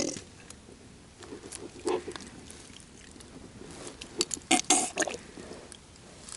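Handling noises as a small catfish is unhooked by hand: scattered clicks and scuffs, with a cluster of louder noises about four to five seconds in.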